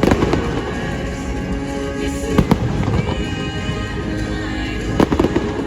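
Fireworks bursting over the show's soundtrack music: a sharp bang at the start, two bangs close together a little past two seconds in, and a quick cluster of bangs about five seconds in.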